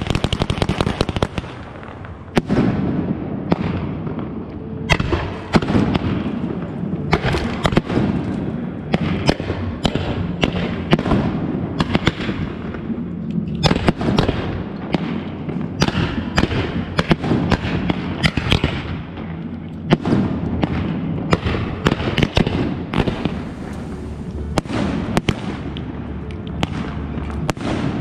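Consumer fireworks going off at close range: a dense rapid crackle of bangs in the first second or two, then many irregular sharp reports over a continuous rushing noise of spraying fountains.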